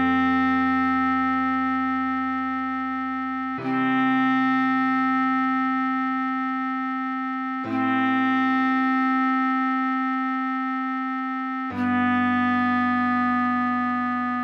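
Clarinet playing long held whole notes of the melody, four notes of about four seconds each, over sustained keyboard chords that change with each note.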